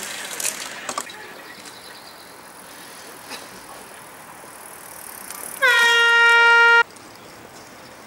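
A horn blows once, about a second long, a single steady tone that dips slightly in pitch as it starts and then cuts off sharply. Before it come a couple of sharp clicks over faint street background.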